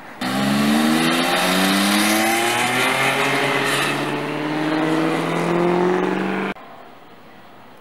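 Sports car engine at full throttle, accelerating hard away from a standstill, its pitch rising steadily as it pulls away. It cuts off suddenly about six and a half seconds in.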